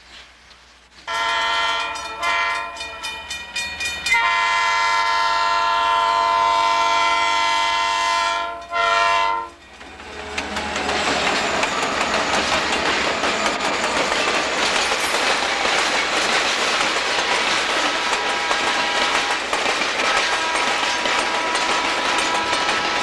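Diesel locomotive air horn sounding for a grade crossing: a few short, broken blasts, then one long blast of about four seconds and a short one. The Southern Pacific work train, led by an SD45T-2 and an SD40, then passes close by: a steady rumble of locomotive engines and wheels, with hopper cars clattering over the rails and crossing.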